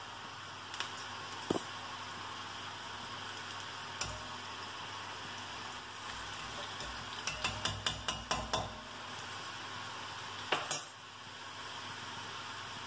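Strands of rice-flour and besan dough frying in hot coconut oil in an iron kadai, giving a steady sizzle. A utensil stirs them, with a quick run of taps against the pan about seven to nine seconds in and a few single clicks.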